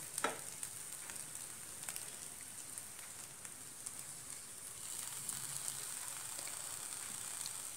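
Faint steady sizzle from a nonstick pan of poha (flattened rice) on the heat, with a few light ticks of the spatula; the hiss grows slightly a little past halfway.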